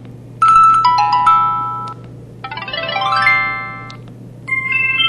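IM-7200 mobile phone's built-in effect tones playing one after another: three short electronic chime jingles. The middle one is a quick rising run of notes. A faint steady hum lies beneath.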